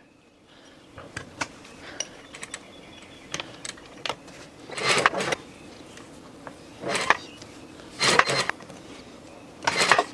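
Sewing machine stitching in short spurts, about four bursts of half a second or so in the second half, after a few faint clicks.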